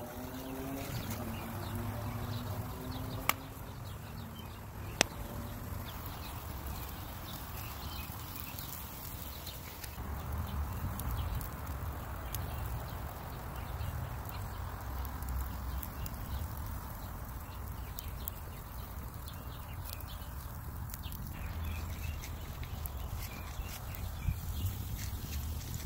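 Wood fire crackling under a grill of fish and vegetables, with scattered small clicks and two sharp pops a few seconds in, over a steady low rumble. A rising pitched sound fades out in the first couple of seconds.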